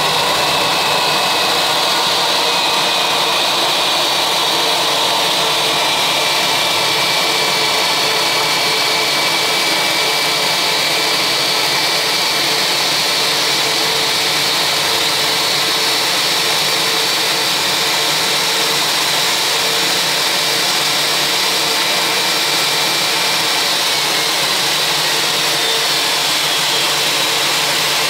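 Airbus A320's twin IAE V2500 turbofan engines running at idle while the airliner taxis in to the gate: a steady loud rushing noise with a high whine whose pitch drifts slightly.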